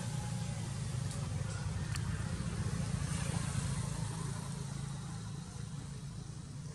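A steady low engine rumble that grows somewhat fainter over the last couple of seconds.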